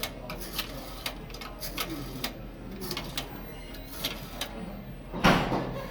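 Payphone being handled and dialed: a run of irregular clicks and taps, with one louder clatter about five seconds in.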